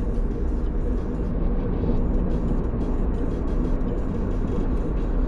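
Steady low rumble of a car running, with no distinct events.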